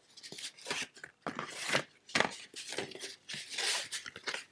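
Thick cardboard game boards being handled and slid against one another: a run of short, irregular scraping and rustling sounds with a few light clicks.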